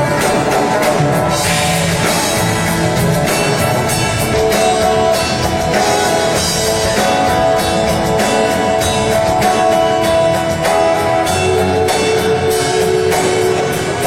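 A live band playing at a sound check: a drum kit beating steadily under held melodic notes.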